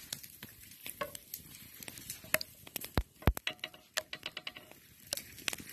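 Bologna slices frying in a pan over a wood campfire: irregular sharp pops and crackles, with the loudest pops and a dense run of crackling a little past the middle.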